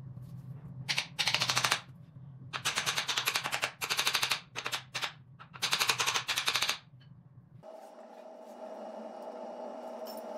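Ratchet wrench clicking in several quick runs, each up to about a second long, while it turns the pivot bolt of an electric scooter's front rocker arm.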